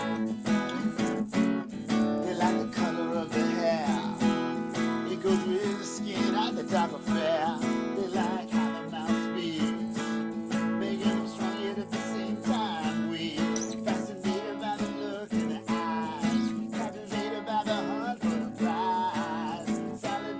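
Acoustic guitar strummed in a steady rhythm, with a melody line played over the chords: an instrumental passage.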